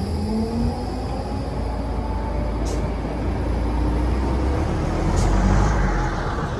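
A heavy city vehicle running close by in street traffic. Its low rumble swells toward a peak near the end, with faint gliding tones near the start and two short sharp ticks.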